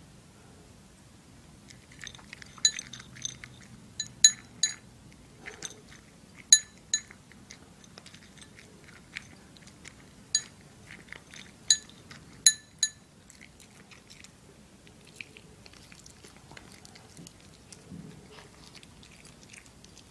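Toy poodle eating dry kibble from her bowl: crunching and chewing, with sharp ringing clinks against the bowl that come thickest between about two and thirteen seconds in.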